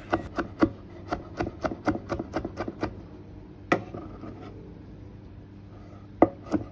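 Knife cutting tomato on a wooden cutting board: quick taps of the blade on the wood, about four a second, then one sharper knock a little after halfway and a quieter lull of about two seconds before the taps start again near the end.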